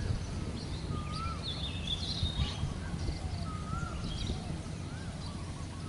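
Birds calling, with short whistled chirps repeating every second or so and a brighter warbling call about two seconds in, over a steady low rumble.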